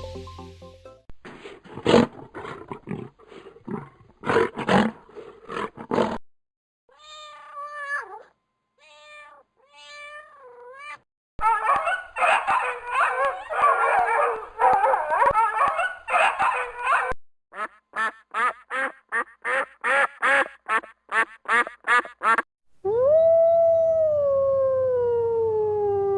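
A run of different animal calls, one kind after another: harsh rough bursts, then short pitched calls that bend up and down, then dense chattering, then a quick series of short repeated calls, and near the end one long howl falling slowly in pitch.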